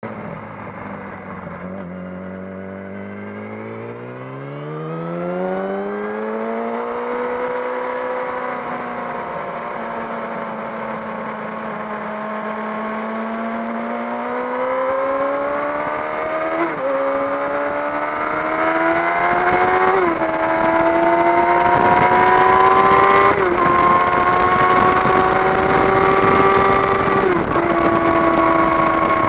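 Yamaha YZF-R6's 600 cc inline-four with a Jardine aftermarket exhaust, pulling up from low revs and accelerating. Its pitch climbs in steps, with a short dip at each of about four upshifts in the second half, and it grows louder as it goes.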